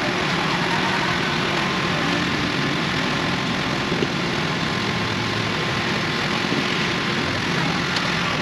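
Concrete mixer truck's diesel engine idling steadily, with one light knock about four seconds in.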